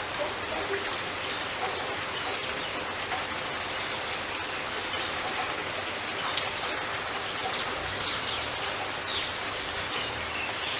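Steady rain falling, a dense even patter with scattered individual drops, and one sharper drip about six seconds in.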